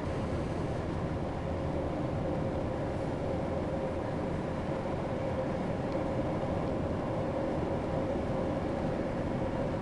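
A car driving at steady speed through a road tunnel: steady engine and tyre noise from inside the car, with a constant hum held throughout.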